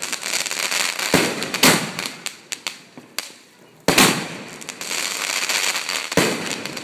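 Aerial fireworks bursting overhead: four sharp bangs, two close together about a second in, one near four seconds and one near six, each trailing off in a noisy tail lasting a second or more, with a few smaller pops between.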